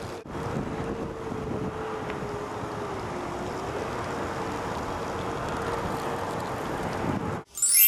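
Blizzard wind blowing: a steady rush of noise with a faint whistle that wavers in pitch.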